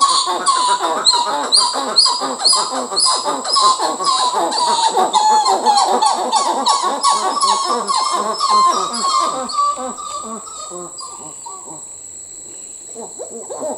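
Dusky titi monkeys calling in a fast, continuous run of repeated notes, the loud call they use to claim their territory. The calling fades about ten seconds in and breaks off, then starts again near the end, over a steady high-pitched buzz.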